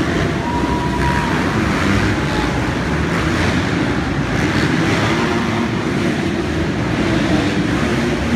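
Several motocross bikes racing around an indoor arenacross track, their engines revving and running together in a steady mix of engine noise that fills the hall.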